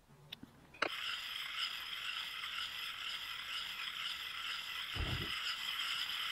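Round sharpening puck rubbed on the steel bit of a hatchet: a steady, gritty scraping hiss with a few steady tones in it, starting suddenly about a second in. A dull thump about five seconds in.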